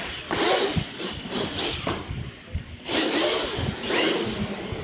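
R/C monster truck's motor and gears whirring in about three bursts of throttle as it wheelies and drives on a concrete floor.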